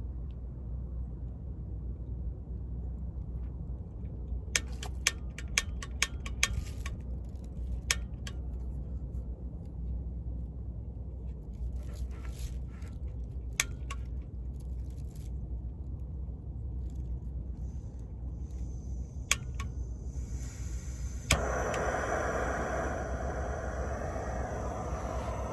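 A run of sharp clicks and light handling knocks, then about twenty seconds in a click and a sudden steady hiss that keeps going: a portable gas camp stove being lit and its burner running. A low rumble sits underneath throughout.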